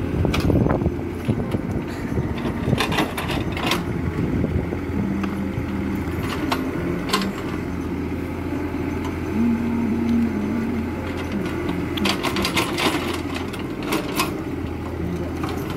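Mini excavator's diesel engine running under load, its note shifting as the hydraulics work, with sharp knocks and cracks as the bucket tears out an old coffee tree stump and its roots.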